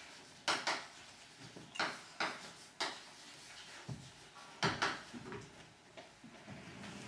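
Chalk writing on a blackboard: a string of short strokes and taps as a word is written, thinning out about five seconds in.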